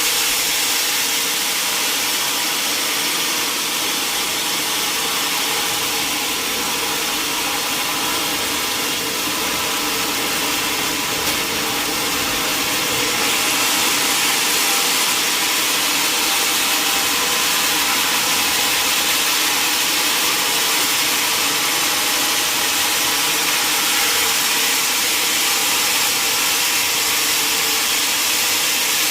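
Sawmill saw machinery running steadily with a constant mechanical hum and noise, unchanging throughout.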